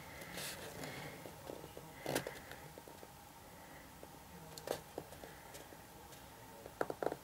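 Cardboard pieces being handled and pressed together during gluing: a few soft, scattered taps and rustles, with a quick cluster of taps near the end.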